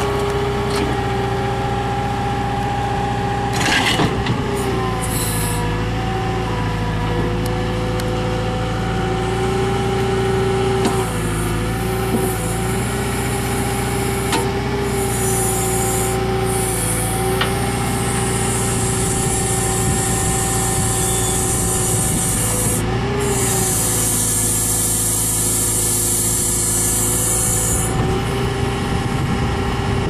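Case 60XT skid steer's diesel engine running steadily while powering a Bradco 408 backhoe attachment through its auxiliary hydraulics, the engine note dipping slightly now and then under load. A couple of knocks, and a hiss for about ten seconds in the second half.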